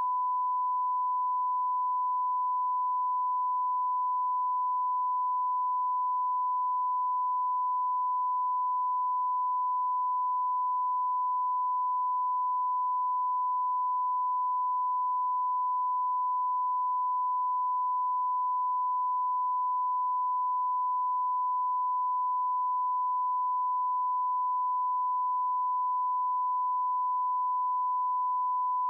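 Steady 1 kHz sine-wave reference tone, the line-up tone that accompanies SMPTE colour bars, held at one unchanging pitch and level.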